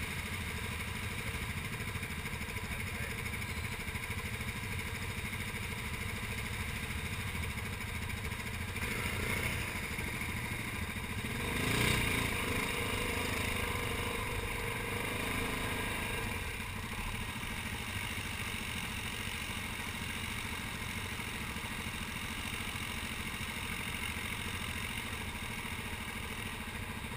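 Yamaha Grizzly 700 ATV engine running at low trail speed. It picks up for several seconds about halfway through, then settles back to a steady low run.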